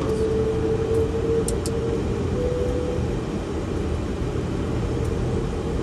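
Steady cockpit rumble of a Boeing 737-500 sitting on the runway with its CFM56-3 engines at idle. A steady whine runs through it and drops out about three seconds in, and two faint ticks come about a second and a half in.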